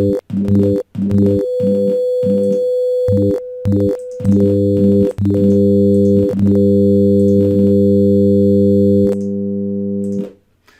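A computer-generated compound tone of five pitches at 100, 200, 300, 400 and 500 Hz, pulsing on and off in a loop. The pulses are short and rapid at first and become longer stretches after about four seconds, with a click at each switch. It cuts off about ten seconds in.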